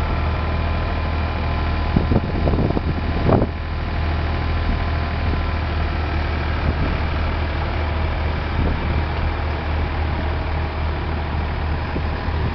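Tractor engine running steadily with a low hum, with a few brief louder noises about two to three seconds in.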